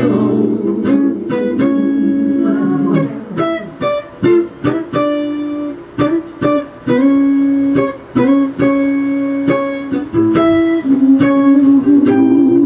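Recorded soul-ballad music in an instrumental break: a guitar plays a slow melody of single plucked notes, many of them held, with no singing.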